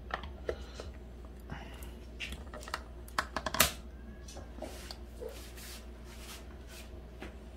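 Plastic lid and handles of a sandwich maker knocking shut, with a quick run of sharp clicks a little past the middle as the handle latch is snapped closed.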